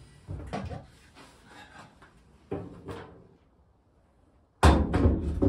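Heavy metal table top of an old table saw being handled and set onto the saw's base: knocks and rubbing early on, then a cluster of loud metal-on-metal clunks near the end as the top is dropped into place and shifted.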